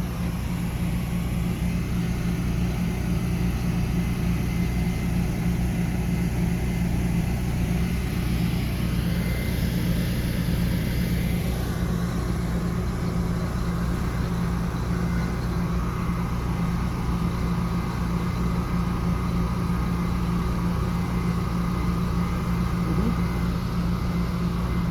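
Concrete mixer's engine running steadily with an even, low hum.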